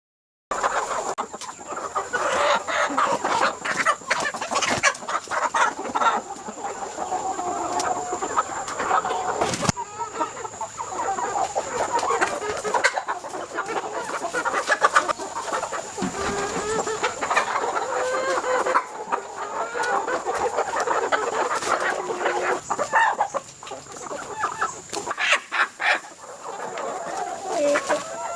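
A flock of chickens clucking and squawking continuously, many birds calling over one another.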